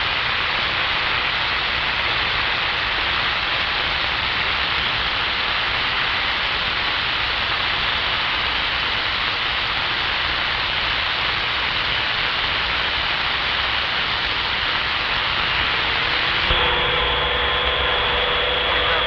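Steady hiss over a low vehicle rumble, with no voices: an open radio channel heard over a running vehicle. About three-quarters of the way through, a steady high tone and a lower hum join in.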